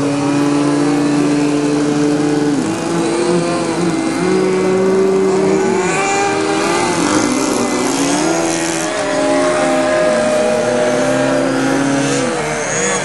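Several RC model airplane engines and propellers running at once in a mass hover of 3D aerobatic planes. Each engine's pitch rises and falls on its own as the pilots work the throttles to hold the planes hanging in the air.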